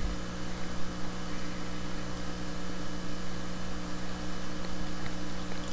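Steady electrical mains hum with a faint even hiss, a few low steady tones held throughout, and no other distinct sound.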